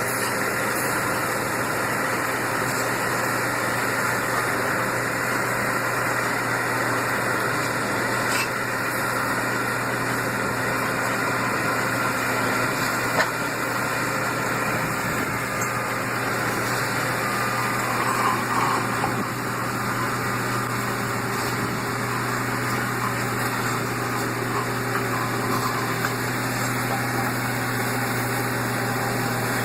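Heavy road-construction machinery running steadily, a continuous engine drone with a low hum and no changes in speed.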